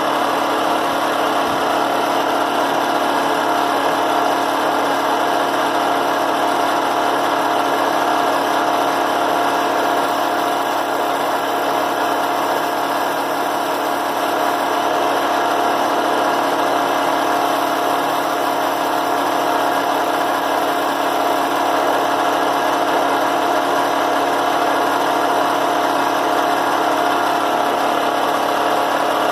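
Cheap benchtop drill press running steadily, spinning a sharpening disc in its chuck for touching up a carbide end mill. A steady whine sits over the motor hum.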